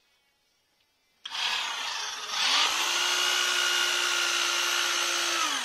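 Corded electric drill driving a wood screw through a 50 mm floor board into a joist. It starts slowly about a second in, runs up to full speed and holds steady for about three seconds, then winds down with falling pitch near the end.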